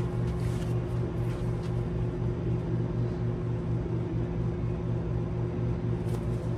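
A steady low machine hum with a slight regular pulse, with a few faint brief noises over it.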